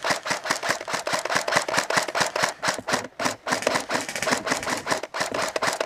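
Airsoft electric guns firing long full-auto bursts, a rapid rattle of about ten shots a second with brief pauses about three and five seconds in.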